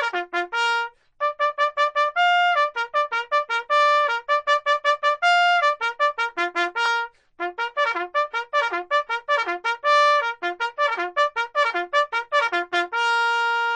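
Background music: a fast melody of quick, separate notes that pauses briefly twice and ends on a long held note.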